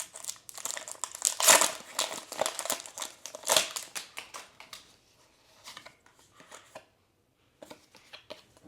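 Foil Pokémon booster pack wrapper crinkling and being torn open, dense crackling that is loudest in the first half. After that come only soft, scattered rustles and clicks.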